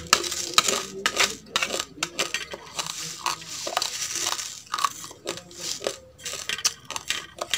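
Crunching of dry, oven-dried basmati rice grains being chewed close to the microphone, a dense run of small crackling crunches. Near the end, dry rice grains rustle and scrape in a plastic bowl as they are gathered up by hand.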